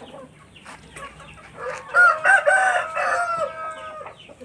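A rooster crows once, starting a little under two seconds in: a drawn-out call of about two seconds that trails off at the end.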